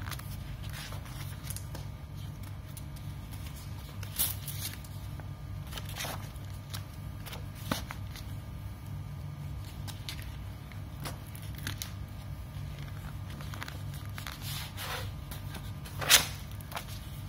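Large pages of a wallpaper sample book being turned, each turn giving a brief rustle or slap every few seconds, the loudest about sixteen seconds in. A steady low hum runs underneath.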